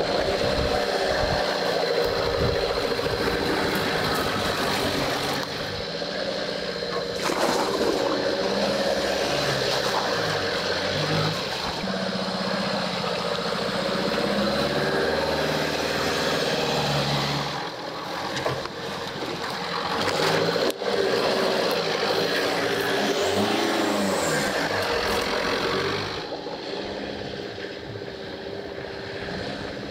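The 2.0 HDi diesel engine of a lifted Suzuki Vitara working off-road, its revs rising and falling several times.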